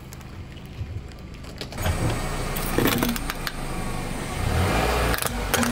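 Car tyre rolling slowly over gravel and crushing small plastic objects under it, with a grinding crunch and sharp cracks about three seconds in and again near the end.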